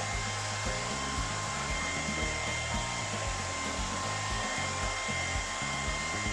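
A steady rushing noise like a blower or hair dryer, with a faint steady whine in it, laid over background music with a steady low beat.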